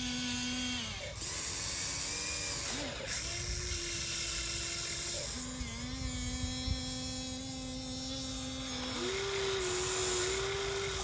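Small electric motors of a radio-controlled excavator whining, the pitch jumping between a few steady tones every couple of seconds as different movements start and stop.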